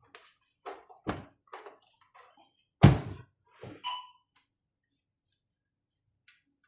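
Clicks and knocks from parts being handled during repair of a patient monitor, with one heavy thunk about three seconds in and a short ringing note about a second later.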